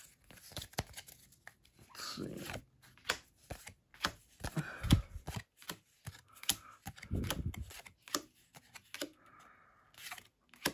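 Pokémon trading cards being flipped through by hand, card after card slid off a small stack with quick papery slides and light clicks.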